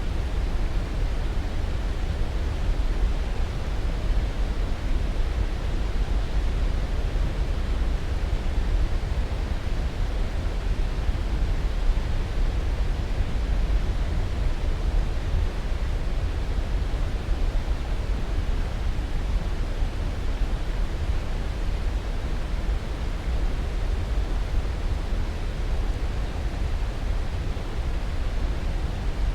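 Sleep-aid noise track: a steady, unbroken rushing hiss, heaviest in the bass and thinning toward the treble, with no changes.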